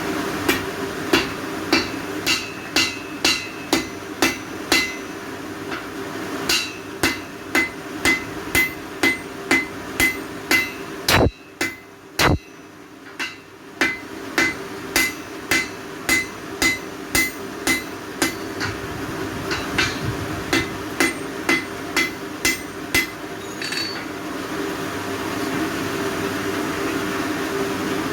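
Blacksmith's hammer striking wrought iron on an anvil in steady runs of about two blows a second, each blow ringing. There is a pause about four seconds in, and two single heavier blows near the middle. A steady hum runs underneath.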